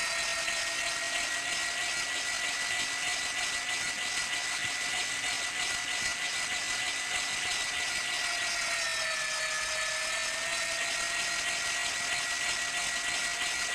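Electric meat grinder running and grinding meat: a steady motor whine with a grinding rattle. Its pitch sags briefly about two-thirds of the way through, then comes back up.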